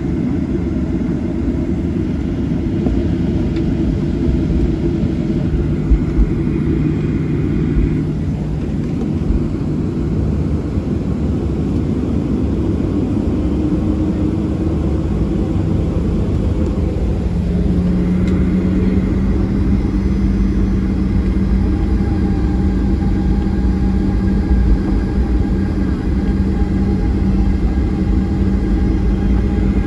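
Cabin noise of a Boeing 737-900ER taxiing: a steady low rumble from its CFM56-7B engines at taxi power and the wheels on the taxiway, with a hum that steps up slightly in pitch and loudness a little past halfway.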